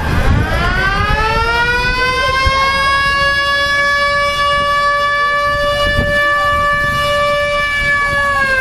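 A siren winds up in pitch, holds one steady wail for about seven seconds, then starts to wind down near the end.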